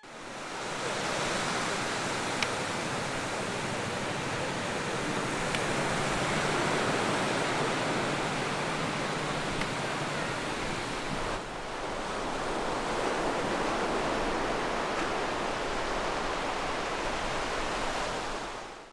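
Sea surf breaking and washing up a sandy beach: a steady rushing hiss that dips briefly about eleven seconds in.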